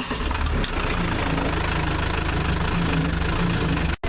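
All-terrain forklift's engine idling steadily, just after catching from cranking, with a brief dropout near the end.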